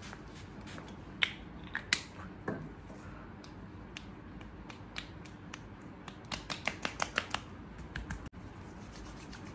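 A face-mist spray bottle spritzed twice, about a second and two seconds in, then a quick run of about eight light pats as hands pat product into the face.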